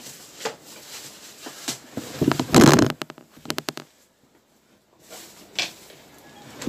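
Handling noise from a large framed digital wall clock and its packing: scattered knocks and clicks, a loud rustling crackle about two and a half seconds in, then a quick run of sharp clicks, with a brief hush about four seconds in.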